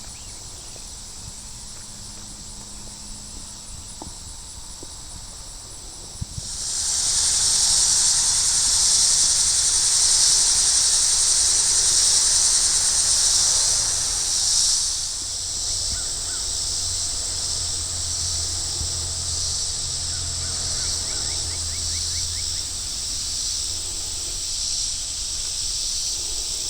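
Chorus of insects chirping and buzzing; faint fast pulsing at first, then a loud, dense high-pitched chorus swells up about six seconds in and eases somewhat about halfway through.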